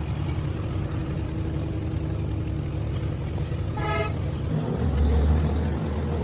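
A vehicle engine running steadily, with a short horn toot about four seconds in and the engine swelling louder about five seconds in.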